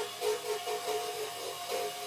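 Woodworking tool working on wood: a steady whine with a rhythmic pulsing scrape, about four or five strokes a second.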